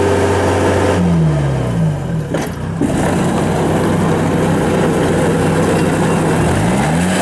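Kubota DC70 combine harvester's diesel engine running close by, its pitch dropping about a second in and climbing back up near the end as it takes on load pushing through thick grass and weeds.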